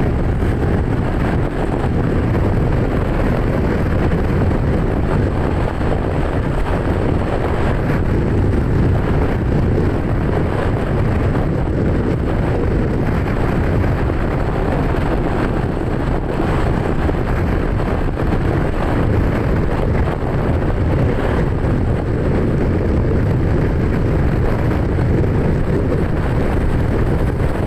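Steady rumble of a moving vehicle with heavy wind buffeting on the microphone, with no horn or clear pitched tone.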